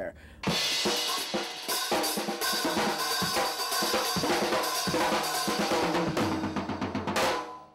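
Rock drum kit played hard with rapid hits, other pitched instruments beneath it. It starts about half a second in and cuts off abruptly near the end.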